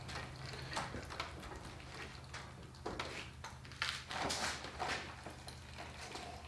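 Engine oil dripping and trickling from an upturned lawn mower into a plastic drain pan as the drain slows toward a drip, heard as irregular light taps over a steady low hum.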